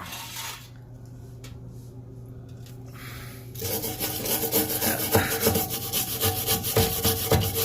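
Hand wire brush scrubbing the gasket seat of a dishwasher booster heater, clearing away debris and scale. It starts about halfway in as quick, dense scratching strokes that carry on to the end.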